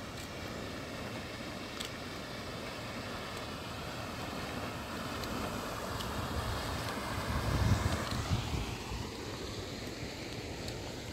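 Wind rushing over the microphone in a steady stream, with heavier low buffeting about three quarters of the way through.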